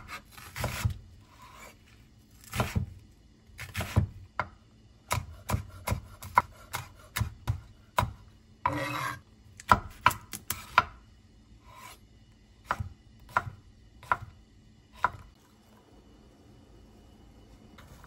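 Kitchen knife chopping on a cutting board in single, irregular strokes, about one or two a second, with a short scraping stretch about nine seconds in. The chopping stops a few seconds before the end.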